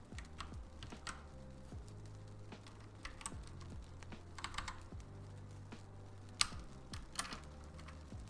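Mechanical keyboard clacking at an irregular pace, with single key or keycap presses about one or two a second and a sharper click near six and a half seconds in.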